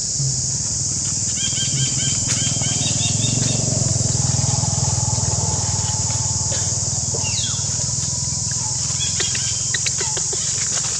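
Dry leaf litter rustling and crackling as a baby macaque handles leaves and a twig, over a steady high hiss, with a few short runs of chirping calls.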